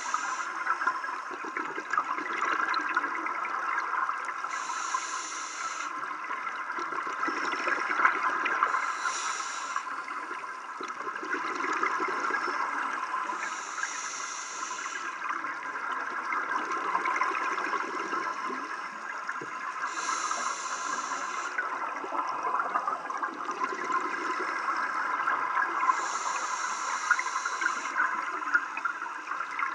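Scuba diver breathing underwater through a regulator: a rush of exhaled bubbles every few seconds over a steady crackling water noise.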